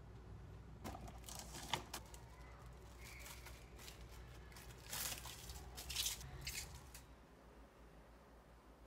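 Thin plastic cling wrap crinkling and tearing in several short bursts as it is pulled off the roll, torn off and pressed down over a plate.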